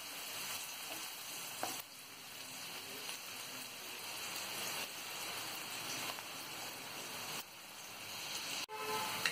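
Finely chopped onions sizzling in hot oil in a frying pan as they soften, a steady frying hiss.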